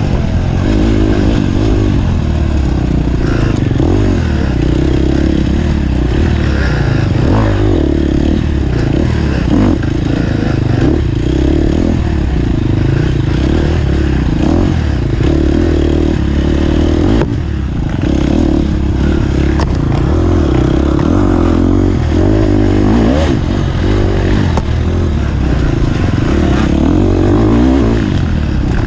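Off-road dirt bike engine being ridden hard, its revs rising and falling constantly.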